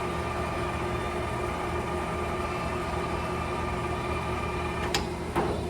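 Clausing Colchester 17 x 80 engine lathe running under power, its geared headstock and feed drive giving a steady hum with a constant gear whine. A single sharp click comes near the end.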